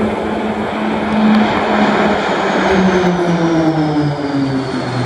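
Aircraft flying past, its engine note held steady and then dropping in pitch from about halfway through as it goes by.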